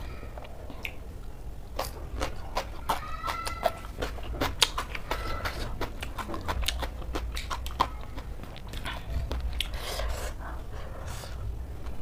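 Close-miked chewing of crunchy raw cabbage salad, with many crisp crunches and mouth clicks. A short high-pitched whine sounds twice, around three and five seconds in.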